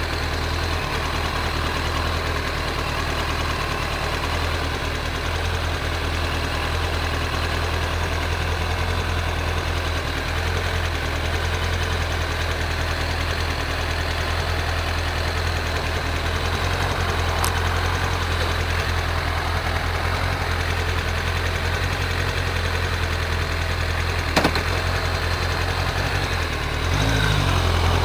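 Kawasaki ZZR1100 motorcycle's inline-four engine running at a steady speed, then starting to rise in pitch and get louder near the end. A single short click about three-quarters of the way through.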